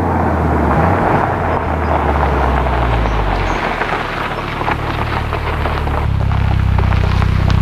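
VW Golf R's turbocharged four-cylinder exhaust, resonator deleted, as the car coasts toward the camera with the revs falling over the first few seconds. Tyres crackle on loose gravel, and from about six seconds in the engine settles to a steady idle.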